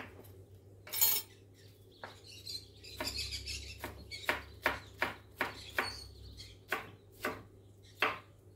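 Vosteed Morgan kitchen knife slicing celery on a wooden cutting board: a run of sharp knocks on the board, about two to three a second in the second half. The neighbour's budgerigars and parrots chirp faintly behind it.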